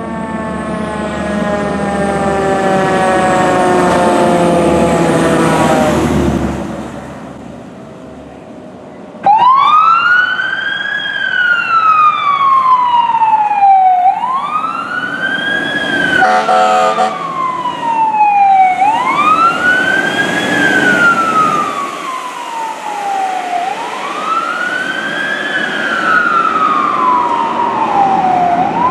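Fire truck sirens: first a siren slowly falling in pitch over a low engine rumble. After a cut, an electronic wail siren sweeps up and down about every five seconds, with a brief horn blast about halfway through.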